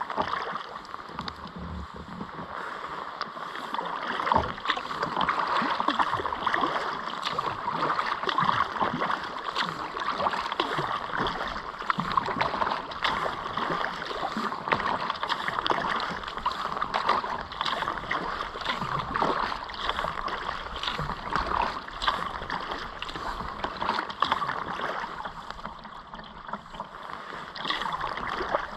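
Steady water splashing and gurgling from a kayak being paddled on a river, with many small irregular splashes.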